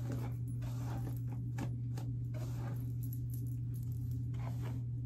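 Hairbrush strokes through long, tangled hair: a run of short, irregular swishes, several a second, over a steady low hum.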